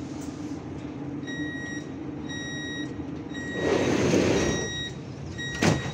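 Siemens Inspiro metro train's door-closing warning: a high beep repeated about once a second, each beep about half a second long, over a steady low hum. A loud rush of noise swells and fades around the middle, and a sharp thump comes near the end.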